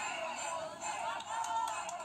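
Parade band music playing, with a thin sound that has almost no bass.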